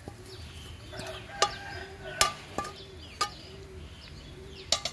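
A few sharp knocks from a metal wok being tipped and tapped as fried noodles are slid out onto a plate. Birds chirp and chickens cluck in the background.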